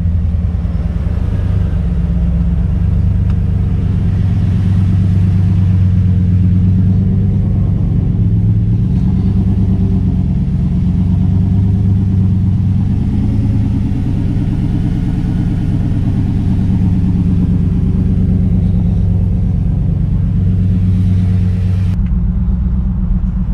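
Nissan Titan's V8 running through a newly fitted budget cat-back exhaust with new catted mid-pipes: a steady, deep, even rumble with no rasp.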